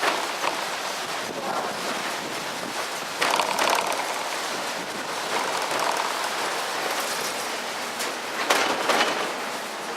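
Cable car running: a steady rushing, rattling noise, with louder bursts about three seconds in and again near the end.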